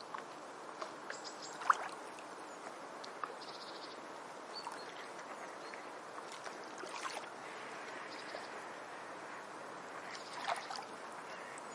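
Beach ambience: water lapping steadily, with scattered small ticks and splashes and one sharp click a little under two seconds in.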